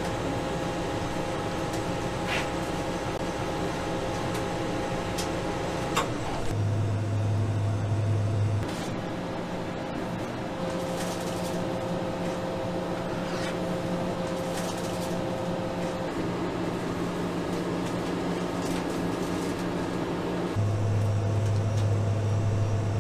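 Steady low machine hum with a few faint clicks and knocks. The hum's pitch and loudness change abruptly a few times.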